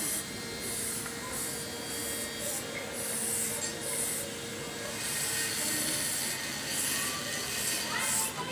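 Hand rubbing on a Honda Click's metal CVT pulley, a series of uneven scrubbing strokes as the pulley face is cleaned.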